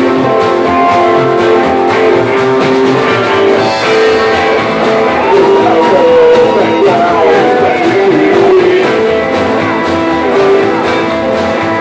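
Live rock and roll band playing: hollow-body guitars, upright double bass and drums keeping a steady beat, with a man singing at the microphone.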